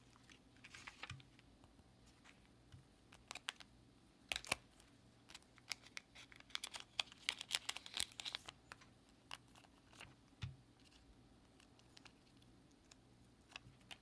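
Hands handling a small plastic wristband device: scattered light clicks and taps, with a quick run of clicking and rustling from about 6 to 8.5 seconds in.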